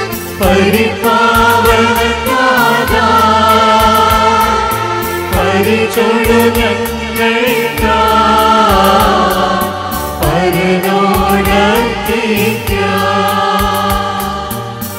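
Mixed choir of men and women singing a devotional song through microphones, accompanied by a Korg electronic keyboard. The singing moves in phrases with brief breaks between them.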